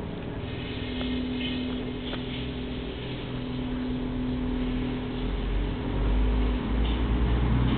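Steady engine-like hum, with a low rumble growing louder about five seconds in.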